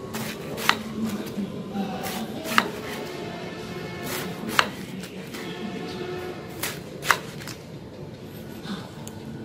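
Kitchen knife slicing a banana flower on a round wooden chopping board: soft cutting strokes, with four sharp knocks of the blade on the wood about two seconds apart.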